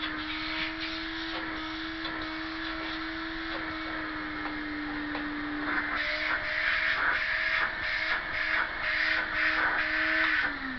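Hoover Hooverette vacuum cleaner running on suction, a steady motor hum with air rushing through the hose. About six seconds in, the rushing air gets louder and uneven. Near the end the motor is switched off and winds down, its pitch falling.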